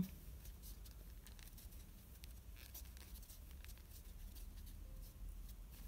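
Faint rustling and soft scratching of thick T-shirt yarn being handled and drawn through stitches with a crochet hook, a few small scattered ticks.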